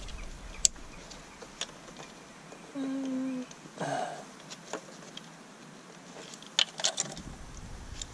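Hands working in a car's engine bay: scattered light clicks and taps, with a quick run of sharp clicks about six and a half seconds in. A short hummed note from the mechanic about three seconds in.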